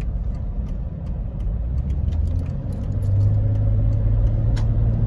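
Jeep Cherokee XJ's 4.0-litre straight-six engine and road noise heard from inside the cab while driving. A louder, steady drone sets in about three seconds in.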